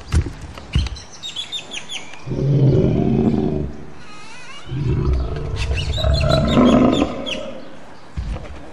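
Two long, deep Hulk-style roars, each lasting about two to three seconds with a short gap between them. Heavy thudding footsteps come at the start and again near the end.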